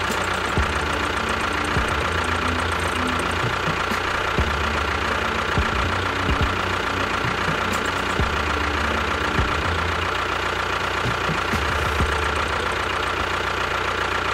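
An engine or motor running steadily, with a constant whine over it.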